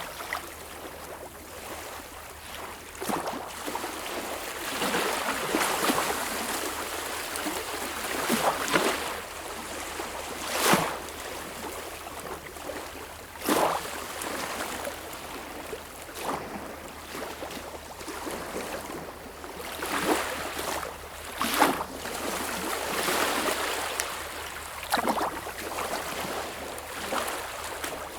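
Sea water washing and lapping in small waves, rising and falling unevenly, with several sharper splashes along the way.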